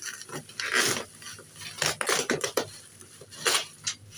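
Irregular clinks, scrapes and rustles of a parcel and its contents being handled and opened, with a few louder knocks about a second, two seconds and three and a half seconds in.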